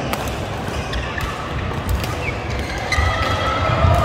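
Badminton being played in a large echoing sports hall: the sharp crack of a racket hitting the shuttlecock right at the start, then a few lighter clicks and short squeaks of shoes on the court floor. All of it sits over a steady din from the other courts. Voices start up near the end.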